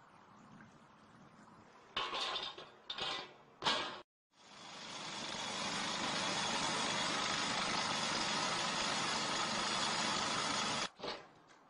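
Road-works machinery: a few short clattering noises, then a machine's steady running noise that swells up over about a second, holds for about six seconds and cuts off suddenly, followed by one more short clatter.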